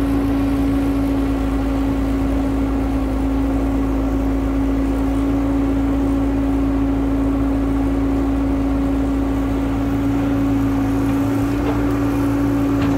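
Excavator's diesel engine running steadily at constant speed: a loud, unchanging drone with a steady low rumble, its pitch holding level throughout.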